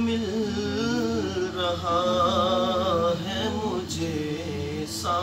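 A man singing an Urdu naat unaccompanied, holding long drawn-out notes that waver and bend in pitch.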